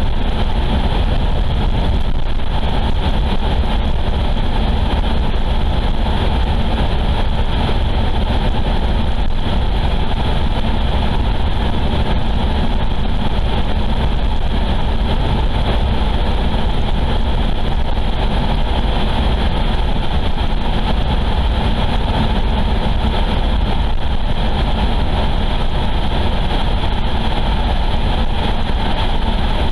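Steady road and engine noise of a car driving along a highway, heard from inside the cabin: a constant low rumble with no separate events.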